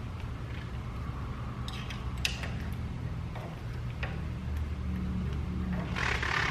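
Scattered light metallic clicks and taps from bolts and hand tools being worked at a pickup truck's front suspension, over a low steady hum, with a short rushing noise near the end.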